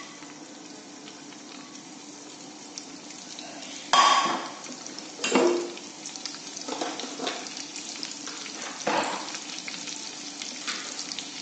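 Green chillies, ginger and cumin seeds frying in hot oil in a kadai: a steady sizzle with louder bursts about four, five and a half and nine seconds in.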